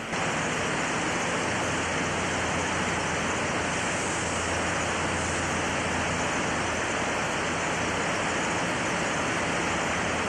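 Steady, even rush of flowing floodwater, with no breaks or changes.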